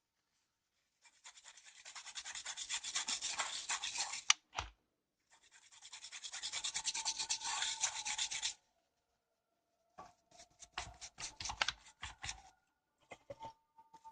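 Rapid scrubbing strokes on a keyboard's circuit board, cleaning solder flux off with alcohol: two bursts of about three seconds each with a sharp click between them, then a scatter of lighter rubs and taps.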